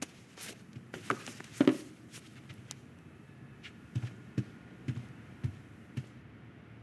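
Animated-film foley with no dialogue or music: a scattered series of about a dozen soft knocks and light thumps, like toys being handled, over faint room tone.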